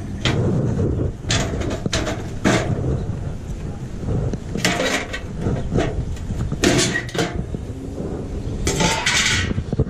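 Flathead screwdriver prying a plate out of a sheet-steel filing-cabinet drawer: about half a dozen short metal scrapes and clanks at irregular intervals, with the drawer rattling.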